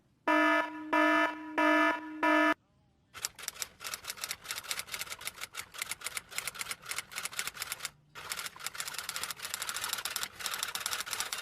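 Four short electronic beeps about half a second apart, then a long run of rapid, irregular clicking with a brief pause partway through.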